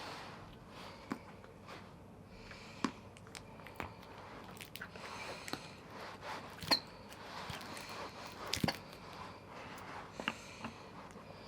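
Scattered light clicks, taps and rustling of things being handled, with a few sharper clinks about two-thirds of the way through.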